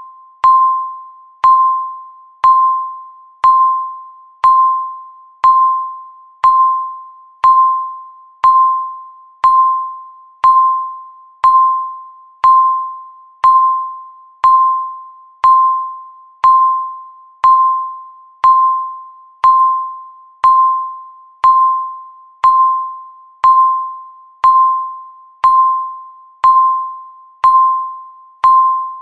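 Countdown timer beeping once every second, each beep a single clear tone that starts sharply and fades away before the next.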